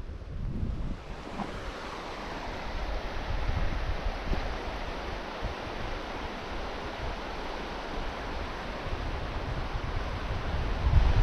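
Steady rushing of storm wind, with gusts buffeting the microphone as low rumbles about a second in and again near the end.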